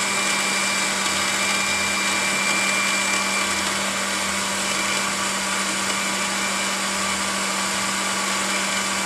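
Electric countertop blender running steadily, blending papaya, watermelon and ice into a smooth shake, with a steady motor hum and a high whine over it.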